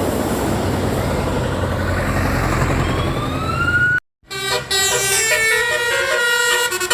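A heavy vehicle rumbling past with a rising whine, then, after a brief cut about four seconds in, a multi-tone 'telolet' bus horn playing a melody of several quick stepped notes.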